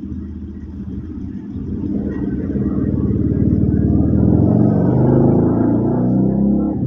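A motor vehicle's engine running close by, growing louder over the first few seconds and easing off a little near the end, as if passing.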